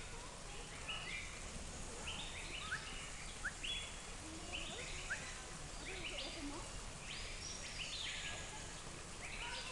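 Repeated high chirping calls, roughly one or two a second, with a few quick rising squeaks and a longer call a little before the end, over steady low background noise.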